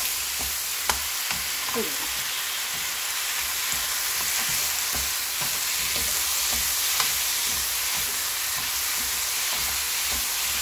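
Cabbage and onion sizzling as they are stir-fried in a nonstick frying pan, a wooden spatula scraping and turning them through the sauce. The hiss of frying is steady, under many light scrapes and a couple of sharper taps of the spatula on the pan.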